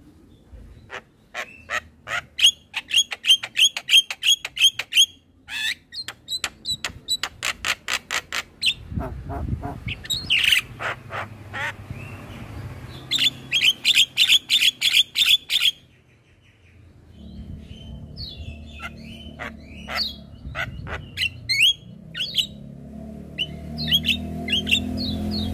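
Javan myna singing: rapid runs of sharp, repeated notes, several bursts at about eight notes a second, with squeaky whistled calls between them. A low steady hum rises under the bird in the last few seconds.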